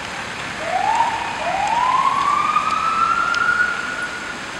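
Fire engine's siren winding up as the Mercedes-Benz Atego 1530 turns out: a short rising wail, then a longer one climbing slowly higher and fading out near the end.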